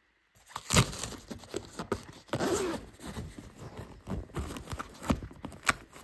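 Zipper on a fabric baby bassinet being pulled by hand in short, uneven scraping strokes, with the crinkly fabric rustling around it. It starts about half a second in.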